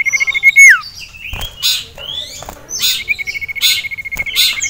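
Common iora calling agitatedly: a rapid, even trill held on one pitch ends in a downward slur about half a second in. Sharp high chirps follow, then a second long trill starts about three seconds in.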